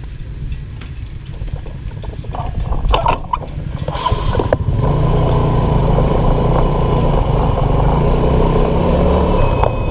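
Small motorcycle engine running, with a few clicks about three seconds in, then getting louder as the bike pulls away and settling into a steady ride.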